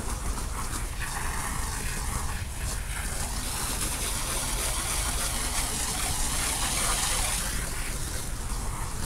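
Steady hiss of water spraying, over a constant low rumble.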